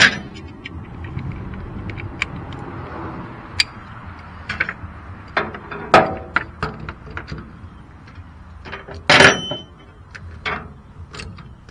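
Steel hand tools clinking and clicking on a rotary cutter's driveline as a nylon lock nut is tightened onto a new shear bolt. The clicks are scattered and irregular, with a louder clank about six seconds in and a heavier, longer clank about nine seconds in.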